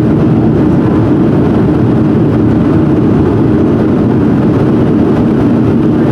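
Cabin noise of a Boeing 737-400 during its takeoff roll. Its CFM56-3 turbofan engines run steadily at high power, with a deep, even rumble heard from inside the cabin over the wing.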